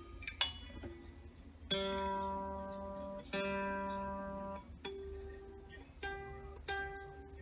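Strings of a 1965 Fender Mustang plucked while its intonation is being set. A few small clicks come first, then one note rung twice, then the same note an octave higher, as at the 12th fret, plucked three times. The tech is checking the string's pitch at the 12th fret against the open string.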